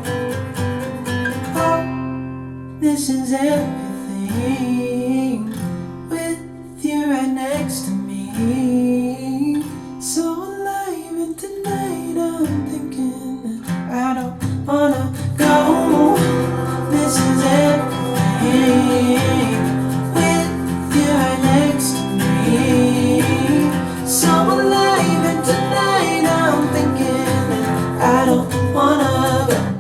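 A song with acoustic guitar and singing, played back through KEF Model 103.2 two-way loudspeakers for a listening test. The arrangement gets fuller from about halfway through.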